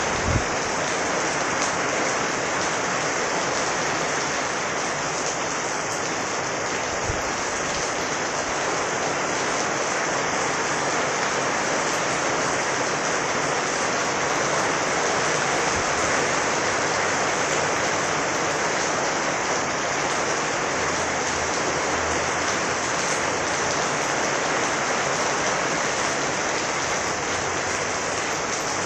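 Heavy rain falling, a steady, even hiss of drops with no let-up.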